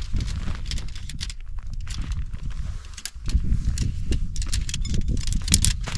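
Tent being unpacked and pitched: nylon fabric rustling and poles clicking and clattering in quick irregular bursts, busier in the second half, over a steady low rumble.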